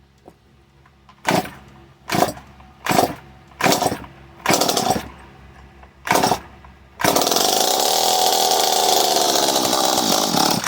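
Stihl MS 250 two-stroke chainsaw being pull-started: six short pulls on the starter cord, the engine catching on the sixth. It then runs loudly for about three and a half seconds, its pitch rising and then sagging, and begins to die away near the end. It is running only on a few drops of fuel poured in by hand, which shows that the ignition coil and flywheel work.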